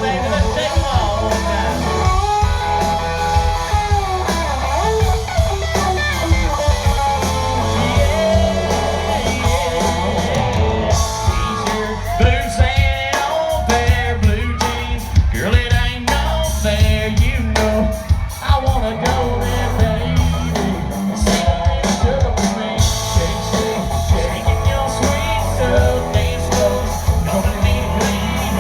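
Live country band playing loudly, a male singer's voice over guitars, bass and drums.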